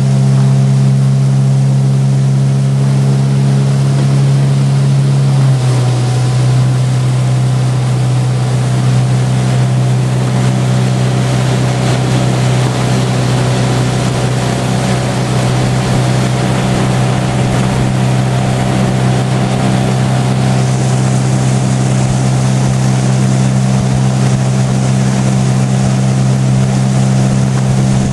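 Motorboat engine running steadily, its note stepping slightly lower about five and a half seconds in, over a steady hiss of water and wind.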